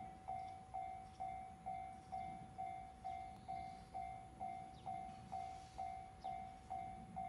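Railway level-crossing warning bell ringing in a steady rhythm of about two dings a second: the crossing is activated for an approaching train.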